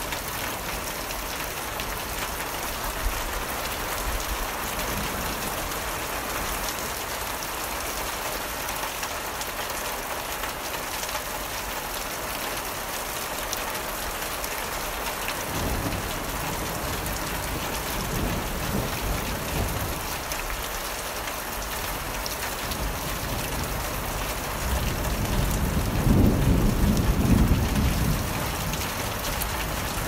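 Heavy rain falling steadily, with low rolls of thunder: one rumble about halfway through and a louder one near the end.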